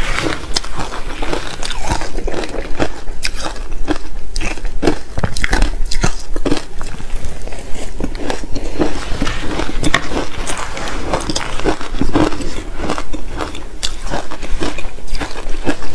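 Soft shaved ice being bitten and chewed close to a clip-on microphone: a dense, continuous run of crisp crunching and crackling.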